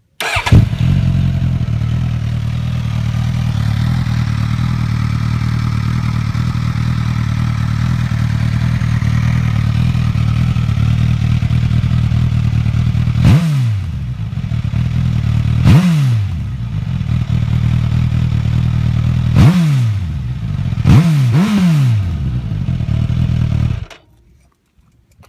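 Suzuki GSX-S1000's 999 cc inline-four through its factory exhaust. It starts up and settles into a steady idle, then is revved in five short throttle blips, the last two in quick succession, each falling back to idle, and is switched off near the end.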